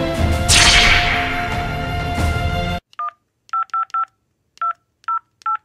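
Background music with a swell cuts off suddenly a little under three seconds in. Then come mobile phone keypad beeps: about seven short two-tone button presses in quick, uneven succession.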